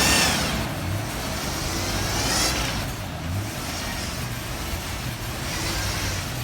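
Four-wheel-drive vehicle's engine running on the trail, its pitch rising and falling a little as it is worked over the obstacle.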